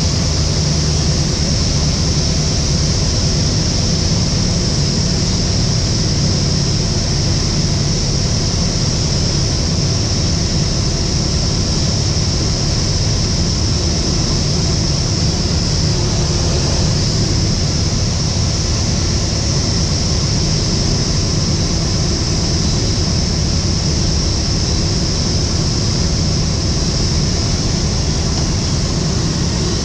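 Van's RV light aircraft's piston engine and propeller running steadily on final approach, heard inside the cockpit with wind noise over the canopy. The low engine note softens a little about halfway through.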